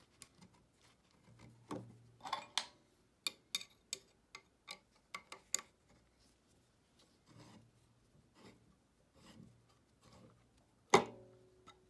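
Handling noise from a rubber timing belt being fitted over toothed pulleys on a steel motor mounting plate: a run of light clicks, taps and rubbing, then one louder knock with a short ring near the end.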